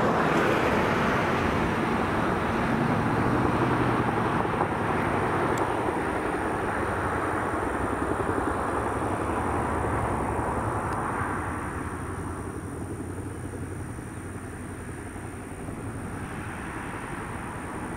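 Boeing CH-47 Chinook helicopter hovering low to land: its tandem rotors beat rapidly over the running turbine engines. The sound eases about two-thirds of the way through and builds again near the end.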